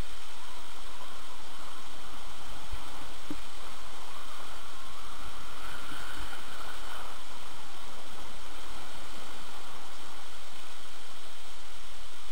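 Steady rush of wind over the microphone of a camera moving downhill on skis, with the noise brightening slightly about halfway through.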